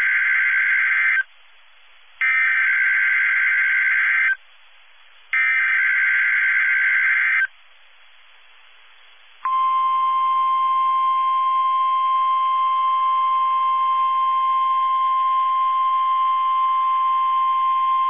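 NOAA Weather Radio Emergency Alert System signals for a tornado warning. Three buzzy screeches of SAME digital header data, each about two seconds long with a second's pause between, carry the tornado-warning code. About nine seconds in, the single steady 1050 Hz warning alarm tone begins and holds.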